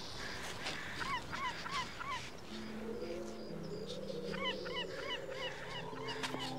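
Geese honking, two short runs of rising-and-falling calls. A low sustained music chord swells in partway through.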